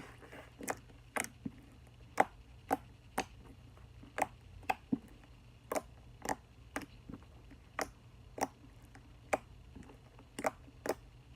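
Metallic slime with hard beads mixed in being pressed and worked by hand, giving sharp, irregular clicks about twice a second.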